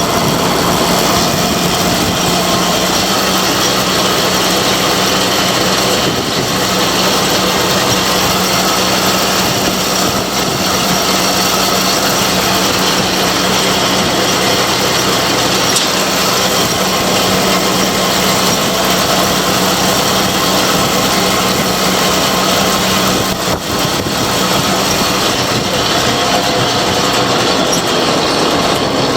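John Deere 569 MegaWide Plus round baler running, driven by a tractor: a steady mechanical clatter over a constant engine hum.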